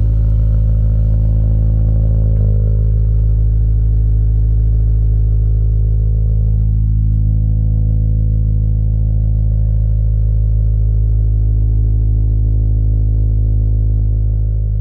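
Subaru BRZ's flat-four boxer engine idling steadily through an Invidia N1 cat-back exhaust just after a cold start. The idle is deep, with most of its sound in the low bass, and its tone shifts slightly about two seconds in.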